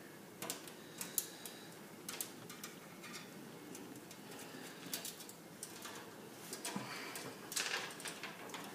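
Screws being driven by hand into the back of a computer case to mount the power supply: scattered light metallic clicks and ticks of the screwdriver and screws against the sheet-metal case, with a busier run of clicks and scraping near the end.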